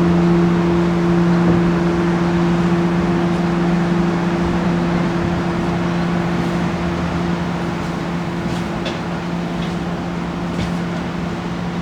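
Large church bell's low hum lingering after being struck, one steady tone with its octave above, slowly fading with no new strokes, over a steady background rush.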